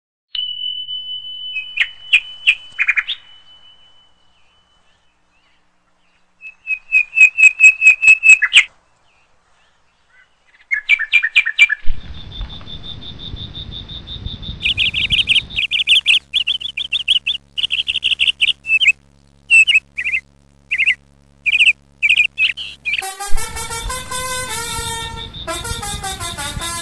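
Birds chirping and trilling in short separate bursts with silent gaps between them. Near the end, band music comes in.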